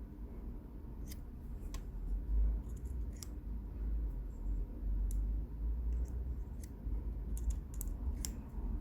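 Small sharp clicks and snips from hand tools working on a rebuildable dripping atomizer, about a dozen at irregular intervals, over a low rumble of handling.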